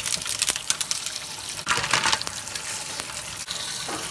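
Water from a kitchen sink sprayer and faucet hissing onto a pile of ice cubes in a stainless-steel sink. Sharp clicks and a louder gush come in the first half, then it settles into a steady rush.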